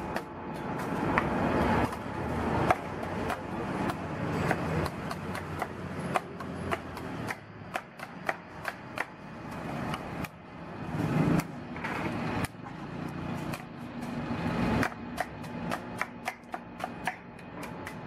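Cleaver chopping a green young coconut on a wooden chopping stump. It is a run of sharp knocks as the blade pares the husk and shell off the white flesh, the strokes coming quicker, several a second, near the end.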